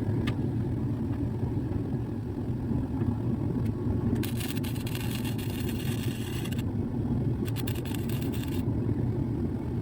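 Welding arc crackling in two bursts, about two seconds and one second long, over a steady low machine hum, while a patch is welded into the floor pan.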